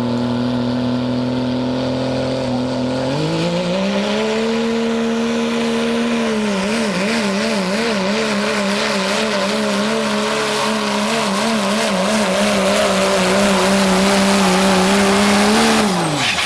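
Diesel 4x4 pickup pulling a sled. Its engine idles steadily, then revs up hard about three seconds in and holds high under load, with the engine speed wavering up and down for several seconds. Just before the end the throttle comes off and the revs drop quickly.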